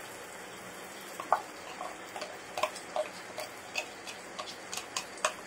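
Small irregular clicks and taps as thick ground paste is scraped out of a plastic container into a pan of chicken curry, starting about a second in at roughly two or three a second, over a faint steady hiss.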